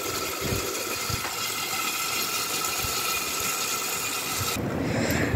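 A steady mechanical whir with hiss, like a small motor or fan running. Its high hiss drops away abruptly near the end.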